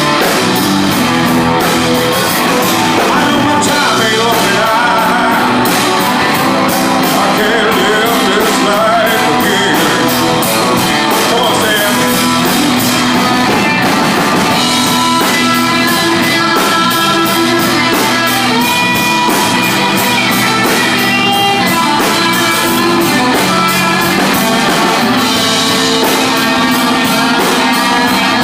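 Live rock band playing: electric guitar, a drum kit with steadily repeating cymbal strokes, and a Nord C2D organ with Nord pedal-key bass.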